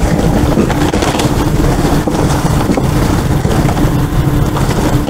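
Plastic bags and cardboard boxes rustling and crinkling as trash is rummaged through in a dumpster, over a steady low rumble.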